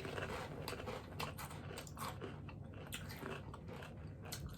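A person chewing and biting a crunchy snack close to the microphone: a run of irregular small crunches.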